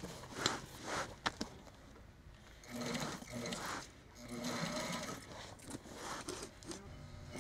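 Sewing machine stitching slowly through thick woven vinyl flooring and its foam backing, run in short bursts of about a second with brief stops as the work is turned. A few sharp clicks come in the first second or so.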